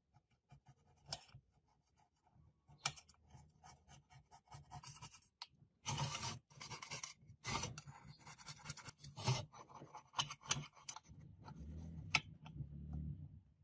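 Thin blade scraping and picking the old black surround and gasket remains off the metal rim of a Kenwood woofer basket: irregular short scratches, with a few louder strokes.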